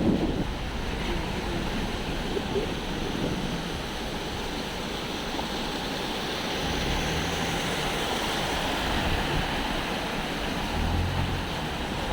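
Steady rushing outdoor noise, with wind rumbling on the microphone now and then, most around the middle and near the end.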